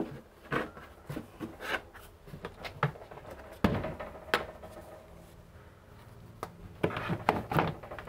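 Hard plastic taps and knocks as a plastic cutting board is handled on the lid of a BougeRV portable fridge-cooler, with a sharper clunk about halfway through.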